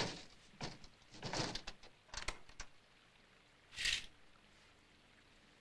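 Door being handled: a knock fading at the start, then a few light latch clicks with rustling between about half a second and two and a half seconds in, and a short hiss near four seconds.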